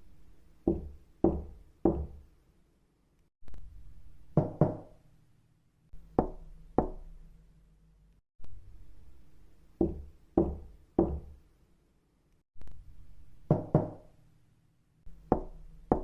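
Knocking: sharp raps in short groups of two or three, each group followed by a pause of a second or two before the next.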